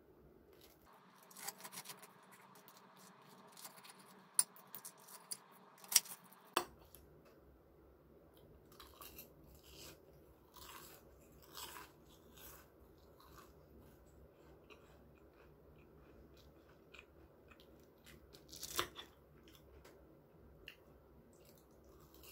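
Knife and fork cutting through a crispy fried breaded egg cutlet, the crust crackling, with several sharp clinks of metal cutlery on a ceramic plate, the loudest about four and six seconds in. After that come softer crunchy bites and chewing of the fried cutlet.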